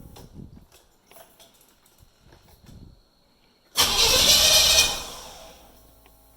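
1990 Chevrolet Camaro IROC-Z's V8 being cranked by its starter for about a second, turning over without catching, then winding down. It is a crank-but-no-start with a freshly charged battery fitted, so the battery is not the cause.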